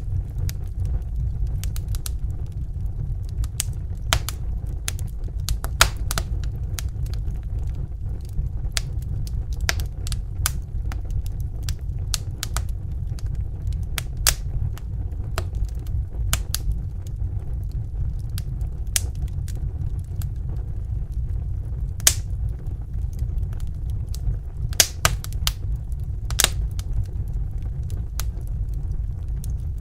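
Wood fire in a fireplace burning with a steady low rumble and irregular crackles and snapping pops, a few louder pops standing out.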